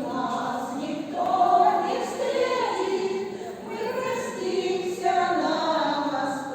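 Small amateur choir of mostly women singing a slow song in unison.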